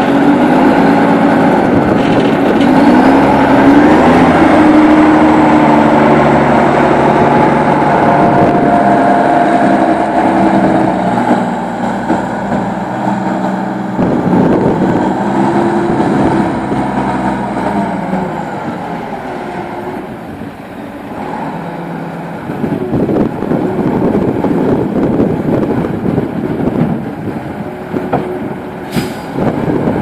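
Heavy diesel engines working: the wheel loader's engine revs up and down in pitch as it lifts a bucket of manure, with the Zetor Crystal 10145 Turbo tractor running alongside. After a brief drop in level in the second half, the sound turns rougher and uneven as the bucket tips over the spreader, with one sharp click near the end.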